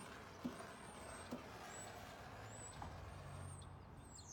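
A handheld gas torch hissing softly as it warms a car door's painted panel before a crease is pushed out. A low vehicle hum sits underneath, and there are a couple of light knocks.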